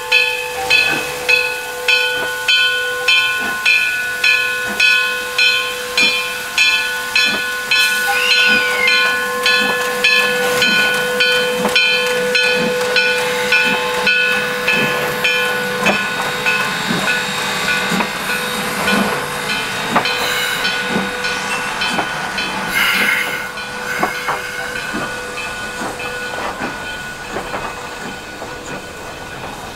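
Steam locomotive's automatic bell ringing steadily about twice a second over the hiss of steam. The bell stops about halfway through, and exhaust chuffs and a brief blast of steam follow near the end.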